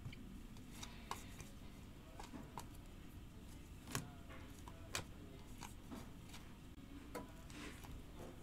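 Faint, irregular clicks and slides of chrome trading cards as a stack is flipped through by hand, with two sharper clicks about four and five seconds in.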